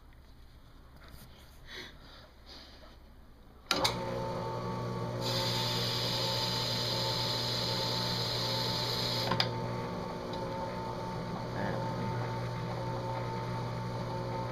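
Faint light scratching, then a sharp click about four seconds in as a machine motor starts and runs with a steady hum. A hiss rides over the hum for about four seconds in the middle.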